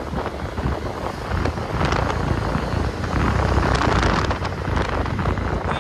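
Wind buffeting the microphone on a moving motorbike, mixed with road and engine noise on the highway. It swells a little in the middle.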